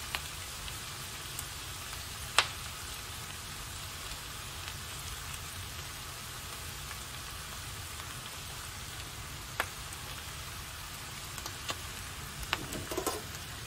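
Japchae noodles and vegetables frying in an oiled pan: a steady, soft sizzle, with a few light clicks of metal tongs near the end.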